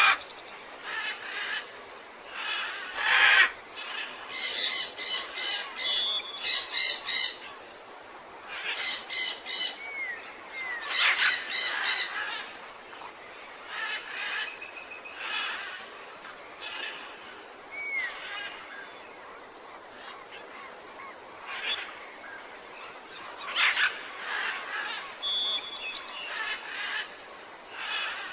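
Tropical forest ambience with many birds calling over a steady background: rapid series of repeated high notes, short whistled notes, and a loud harsh call about three seconds in.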